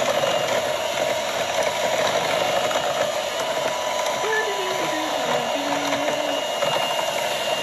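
An old electric hand mixer runs steadily on its low setting, its beaters turning through milk and pudding mix in a plastic bowl.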